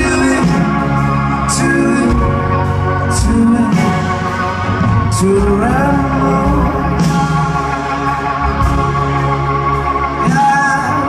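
A rock band playing live, with drums, guitars and an organ-like keyboard, in a passage between sung lines. It is heard from among the audience in a large hall.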